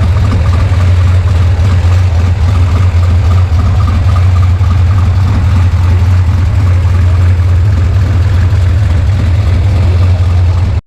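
Chevrolet Opala's tuned, naturally aspirated 4.1-litre inline-six idling steadily, with a loud, deep exhaust note.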